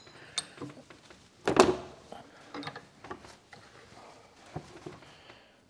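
Metal power steering cylinder parts being handled at a bench vise: one loud clunk about a second and a half in, then a few lighter clicks and knocks.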